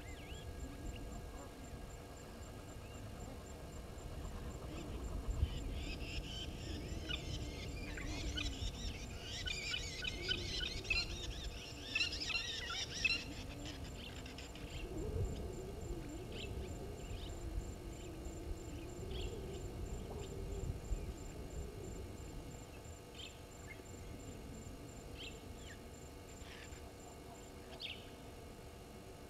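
Oxpeckers calling: a dense burst of rapid, high chittering calls lasting several seconds, followed by scattered single chirps, over a low background rumble.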